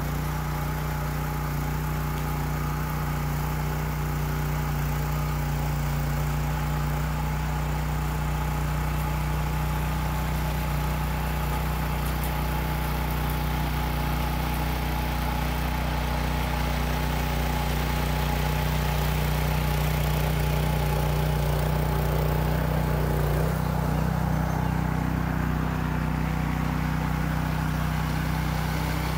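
Red rear-tine garden tiller's small gasoline engine running steadily under load as the tines churn sand into clay soil. The engine note shifts slightly about three-quarters of the way through.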